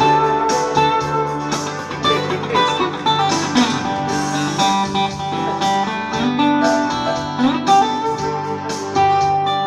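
Steel-string acoustic guitar played solo: a quick plucked lead melody over bass notes, with a couple of notes sliding up in pitch.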